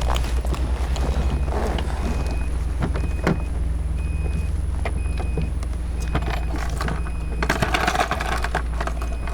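A vehicle engine running with a steady low rumble, under a short high beep that repeats about once a second, with scattered knocks and a burst of rustling near the end.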